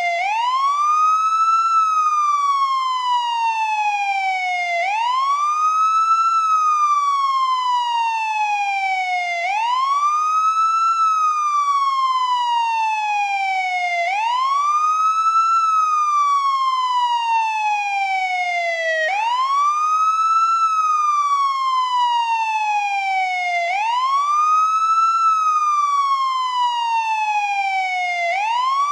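American police car siren sounding its wail: a steady tone that climbs quickly in pitch, then slides slowly back down, repeating about every four and a half seconds.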